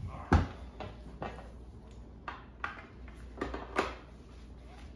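Racing harness belt hardware being handled as the straps are fitted to a bucket seat: a string of about seven sharp clicks and knocks, the loudest about a third of a second in.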